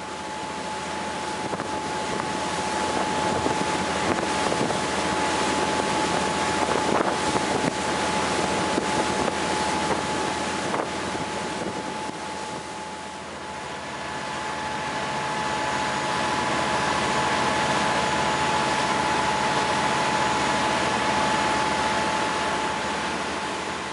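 Sportfishing boat running at speed: engine drone with a steady high whine, water rushing along the hull, and wind on the microphone. The sound swells and eases slowly, with a second, higher whine joining about halfway through.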